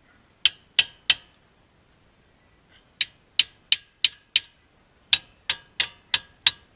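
Sharp strikes on a car's front brake caliper to knock it loose from the rotor. Three come about half a second in, five more from about three seconds, then a steady run of about three a second.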